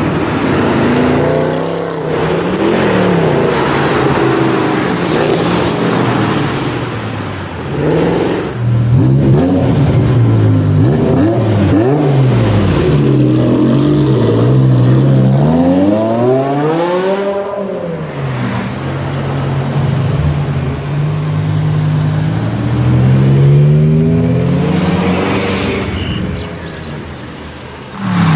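High-performance car engines revving and accelerating past one after another, the pitch climbing and falling with each rev and gear change. About halfway through, one engine revs steeply up and then drops off sharply.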